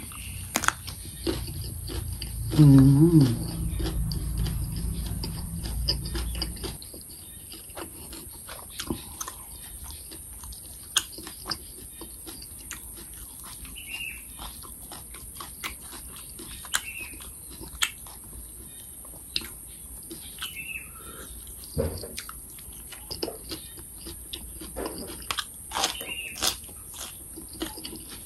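Close-up chewing of raw cucumber and mackerel chili dip, with scattered crunches, clicks and mouth smacks. About three seconds in there is a brief, loud, wavering hum.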